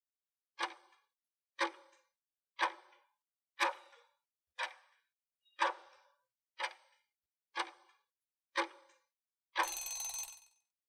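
Countdown timer sound effect: a clock-like tick once a second, nine times, then a noisy burst lasting about a second as the timer runs out.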